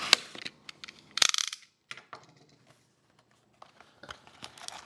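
Hands opening a cardboard trading-card box and taking out the pack: a sharp click at the start, a short scraping rustle about a second in, then scattered light clicks and taps.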